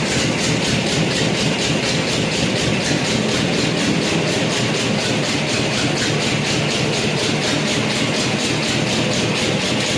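Air compressor running steadily with a rapid, even pulse, supplying air to a pneumatic tyre-changing machine.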